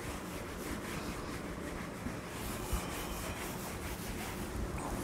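Blackboard eraser rubbing chalk off a chalkboard in repeated wiping strokes: a steady, scratchy rubbing.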